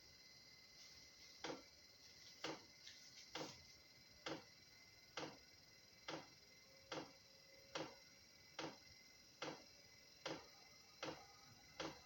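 Chinese diesel air heater's fuel dosing pump ticking steadily, a little faster than once a second. Each tick is a pulse of diesel being metered to the burner while the heater runs.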